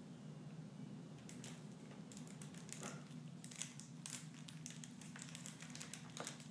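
Faint, scattered small clicks and light handling noise over a steady low hum.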